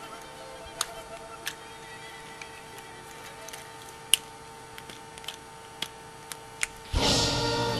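Plastic joints and panels of a Star Wars Transformers Captain Rex toy clicking and snapping as it is folded into its Freeco Speeder form: about a dozen sharp, separate clicks at irregular intervals. Music comes in loudly near the end.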